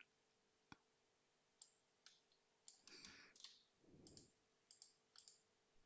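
Near silence, with a few faint computer mouse and keyboard clicks.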